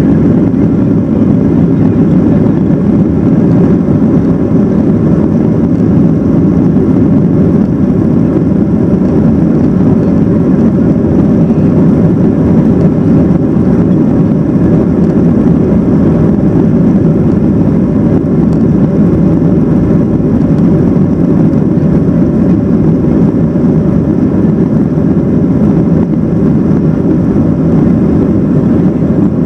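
Steady cabin noise inside a Boeing 737-800 rolling on the ground: a loud, even rumble from its CFM56-7B jet engines at low thrust, with no rise in pitch.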